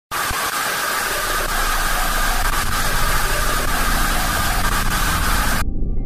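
Loud static hiss, a sound-design effect like an old film or TV screen, with a low rumble underneath. The hiss cuts off suddenly near the end, leaving the rumble and the first steady tones of eerie music.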